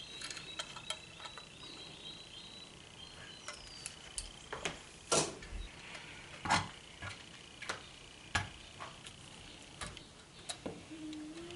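Irregular sharp clicks and knocks of a smart deadbolt lock's metal parts being handled and fitted into a door, with a few louder knocks in the middle.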